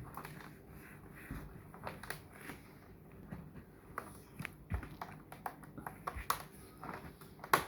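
Irregular light taps and clicks of a cardboard toy box being handled while someone tries to open it from the bottom.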